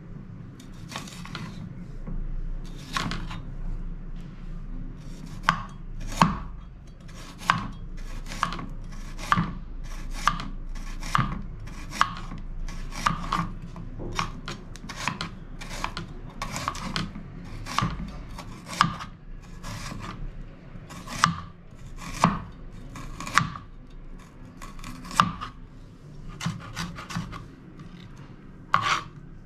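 Kitchen knife slicing a red onion on a wooden cutting board: a run of sharp knocks of the blade on the board, roughly one to two a second, with a little rasp as each slice cuts through.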